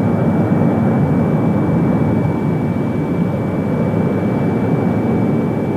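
Jet aircraft in flight: steady, even engine noise, with a thin high whine held throughout.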